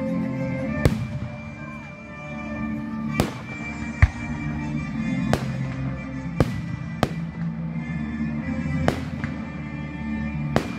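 Aerial firework shells bursting, about eight sharp bangs at irregular intervals, the loudest about four seconds in, over music playing throughout.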